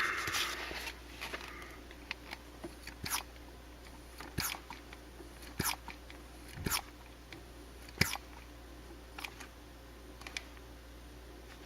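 Vacuum pump worked stroke by stroke, a sharp click with each stroke about once a second, drawing vacuum on a climate-control vacuum actuator and its two lines to test them for leaks.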